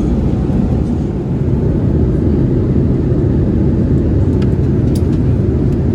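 Steady low rumble of a Boeing 787-8's cabin noise from the engines and airflow, with a couple of faint clicks near the end.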